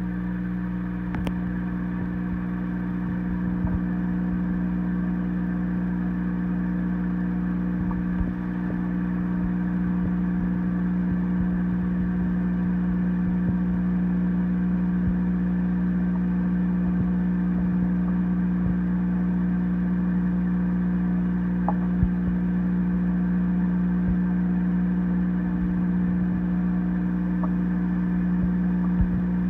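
Aquarium pump motor humming steadily, a constant low electrical hum with a few faint ticks.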